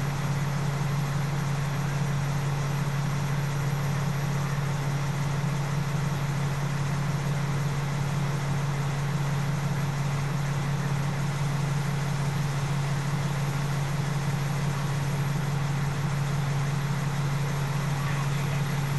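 Fire engine's engine idling, heard from inside the cab: a steady, unchanging low hum.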